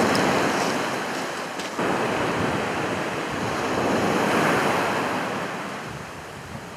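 Sea waves breaking and washing up a beach. The surf swells to a peak about four seconds in, then fades, with some wind on the microphone.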